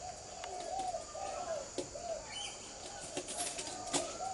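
A bird calling a quick series of short, soft notes that rise and fall, two or three a second. A couple of sharp clicks are heard, one a little under two seconds in and one near the end.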